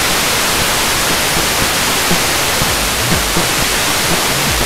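Steady FM receiver hiss from an RTL-SDR tuned in wideband FM to 68.45 MHz, with only faint traces of the station's audio underneath: the sporadic-E signal from Radio Gomel FM has faded down into the noise.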